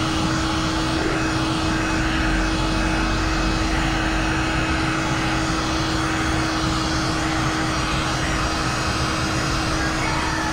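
Handheld electric heat gun running steadily: its fan motor gives a constant hum with one steady tone over a hiss of blowing air. It is heating window tint film to shrink it onto a car's curved rear glass.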